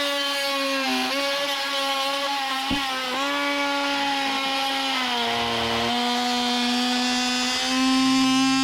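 Oscillating multi-tool blade plunge-cutting into dry wood: a steady high buzz whose pitch sags briefly under load about one, three and five seconds in, then recovers.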